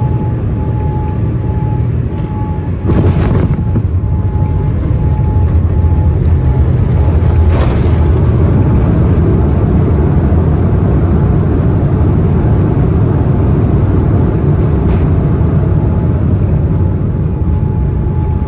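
Jet airliner cabin noise during the landing: a steady low rumble of engines and airflow. About three seconds in there is a brief rushing burst, after which the rumble stays louder.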